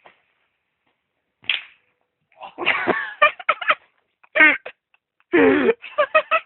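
People laughing and shouting loudly in repeated bursts, after a single short, sharp sound about one and a half seconds in.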